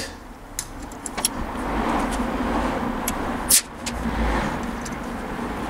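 Compressed air hissing from a hand blow gun as it blows out the passages of a four-cylinder motorcycle carburetor bank, with a short break about three and a half seconds in and a few light clicks.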